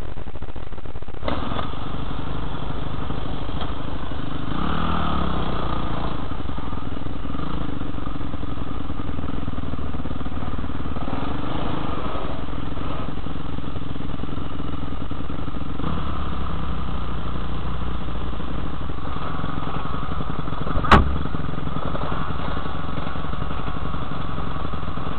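Motocross dirt bike engine running as it is ridden around a track, its pitch rising and falling with the throttle, heard from a helmet camera. A single sharp knock about three quarters of the way through.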